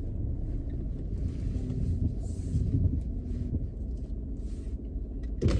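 Steady low rumble of a car heard from inside the cabin as it moves slowly or idles, with a sharp knock near the end.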